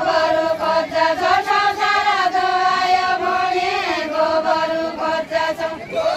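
A group of women singing a Deuda folk verse together in unison, holding long drawn-out notes that step down in pitch about four seconds in.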